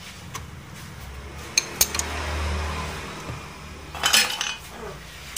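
Metal parts and hand tools clinking and clattering on a hard surface: a few sharp clinks, then a short burst of clatter about four seconds in.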